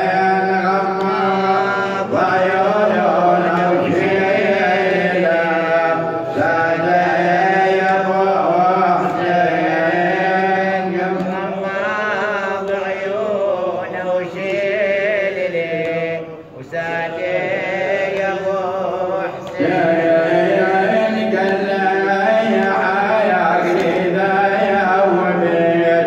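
A male radood's solo voice chanting an Arabic nawha, a Shia mourning lament, in a melodic line of long, wavering held notes. He breaks off briefly for breath about sixteen seconds in.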